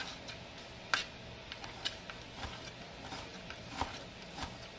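Chef's knife tapping on a plastic cutting mat over a wooden board as it dices partly frozen beef: a few faint, irregularly spaced clicks, the sharpest about a second in.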